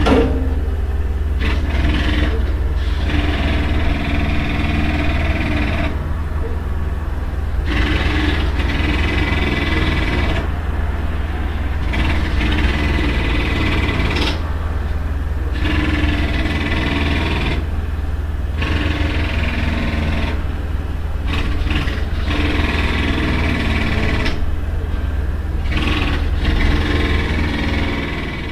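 Pneumatic hammer (jackhammer) breaking up a street, heard from inside a room: bursts of rapid hammering a few seconds long with short breaks between them, over a steady low rumble.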